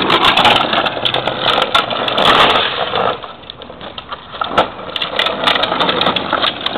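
Hard plastic wheels of a Green Machine ride-on trike rolling and sliding on asphalt: a rough, rattling rumble full of sharp clicks, loudest for the first three seconds and then somewhat lower.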